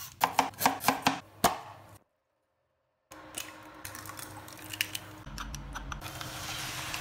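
Vegetable peeler scraping the skin off a lotus root in about seven quick strokes, then a second of dead silence at a cut. After that comes a steady low hiss with small clicks and taps of kitchen work.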